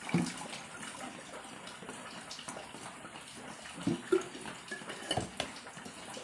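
Water being poured from a metal bottle into a drinking glass: a steady splashing trickle. A few light knocks near the end as the bottle and glass are handled.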